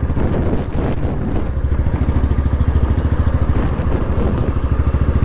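Motorcycle engine running at low revs with a steady, even exhaust pulse.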